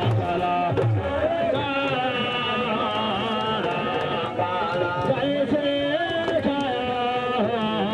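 Music with a voice singing or chanting a long, wavering, ornamented melody.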